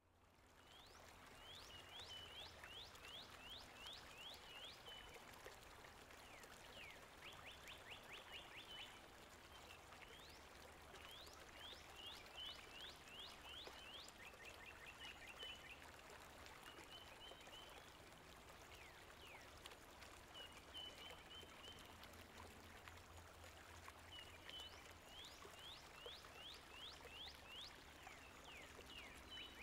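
Faint songbirds singing: runs of quick, high, sweeping notes, several to a second, repeated every few seconds, over a steady background hiss.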